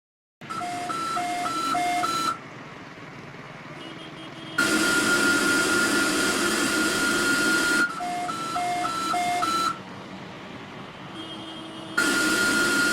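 Electronic broadcast alert signal over static hiss: a run of short beeps alternating between a high and a low pitch, then a long steady tone over louder hiss lasting about three seconds, then the alternating beeps again, with another steady tone starting near the end.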